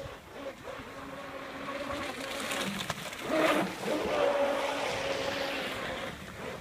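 Pro Boat Blackjack 24 RC catamaran's electric motor whining steadily as the boat runs past at speed, loudest about three and a half seconds in, with water splashing from its wake.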